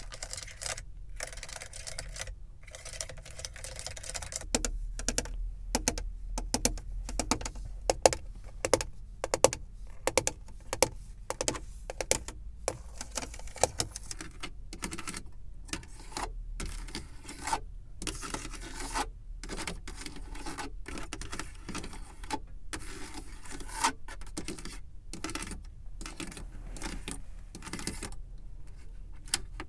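Fingers tapping on a car's surfaces, ASMR-style: a quick, uneven run of light taps and clicks, several a second, in clusters with short pauses.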